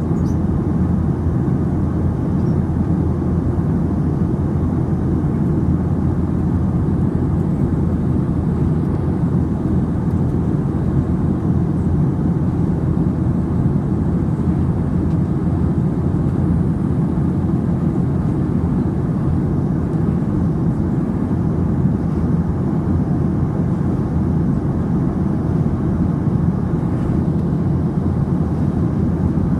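Jet airliner cabin noise in flight: the steady, low-pitched noise of the engines and airflow, heard from inside the cabin at a window seat.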